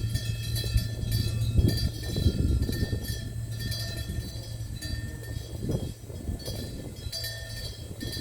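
Low hum of a large Korean Buddhist temple bell (beomjong) ringing on and slowly fading between strikes. Over the hum come irregular light metallic clanks and knocks.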